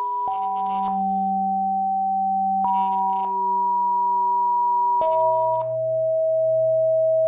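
Alien Noise Instrument software synthesizer playing held, pure sine-like tones, several at once, that step to new pitches about every two and a half seconds. Each new note starts with a short burst of high hiss.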